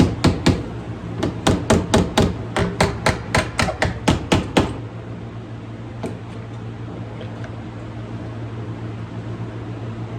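Body hammer tapping quickly and lightly on a thin sheet-metal car door panel, about twenty taps in under five seconds before stopping, working the metal around a pulled low spot. A steady low hum runs underneath.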